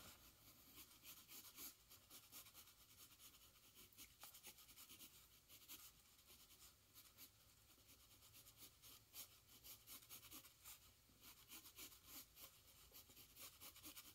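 Faint scratching of a graphite pencil on paper as it sketches in short, quick strokes, one after another.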